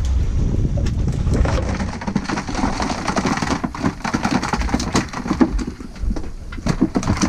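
Wind buffeting the microphone on a boat at sea, with water splashing and crackling against the hull.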